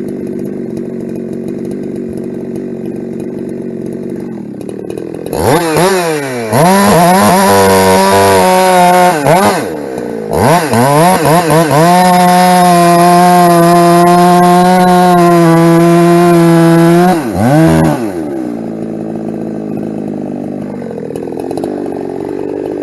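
Ported Husqvarna 372 two-stroke chainsaw idling, then revved to full throttle about five seconds in and held wide open while sawing firewood. The engine drops off briefly about ten seconds in, revs back up for a long steady run, and falls back to idle near the end.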